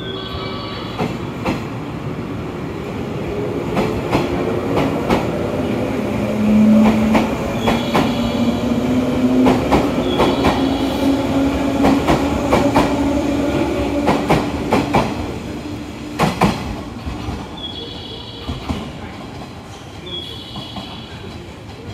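JR 117 series electric train accelerating away along the platform: its traction motors give a tone that climbs steadily in pitch as it gathers speed, loudest about six seconds in. Wheels click over the rail joints, and the sound fades as the train draws off.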